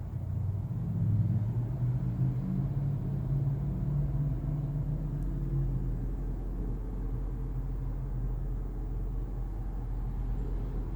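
Low rumble of a 2019 Kia Niro on the move, heard from inside. For the first six seconds or so a low hum wavers slightly in pitch over it, then fades into steady rumble. No high-pitched squeal stands out.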